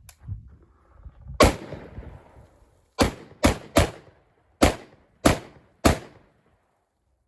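Seven gunshots fired at targets on a range. The first comes about a second and a half in, loudest and with a long echo. Six more follow over the next three seconds in an uneven string, each with a short echo.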